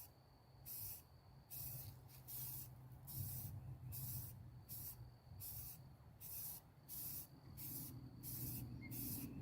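Spray paint being sprayed in a quick series of short hissing squirts, about one to two a second, as spots in a fresh satin granite-gray coat are touched up.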